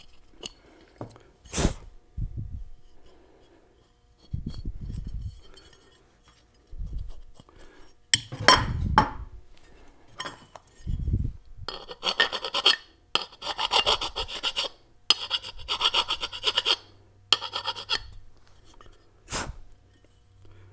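Flat hand file stroked back and forth across the flat face of an aluminium Muncie 4-speed transmission side cover, a run of rasping strokes in the second half, dressing the surface flat and knocking down high spots. Before the filing, a few knocks and thumps as the cover and tools are handled on the bench.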